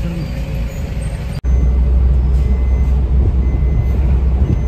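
Low, steady rumble of a car driving on the road. An abrupt cut about a second and a half in makes the rumble louder.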